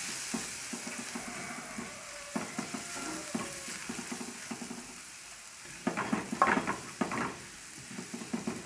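Chopped garlic sizzling and softening in hot olive oil in a metal frying pan, stirred and scraped with a wooden spoon. The spoon strokes grow louder and sharper about six seconds in.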